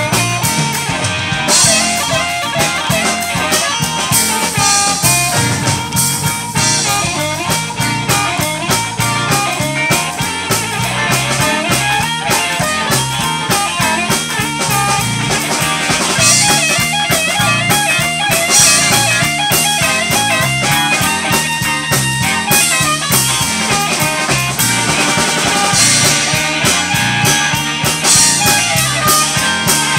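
Live blues band playing: an amplified harmonica, cupped against a handheld microphone, plays over guitar and a drum kit keeping a steady beat.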